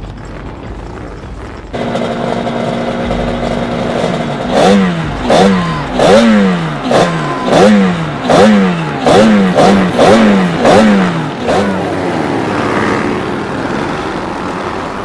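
Two-stroke motorcycle engine cutting in with a steady buzzing idle about two seconds in, then revved again and again: about ten loud blips that rise and fall in pitch, well under a second apart. Near the end it settles into a blurred, gradually fading engine noise.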